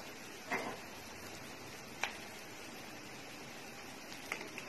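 Chopped onions and spices sizzling gently in a stainless steel kadai, with a spatula scraping and knocking against the pan about half a second in, at two seconds and again near the end.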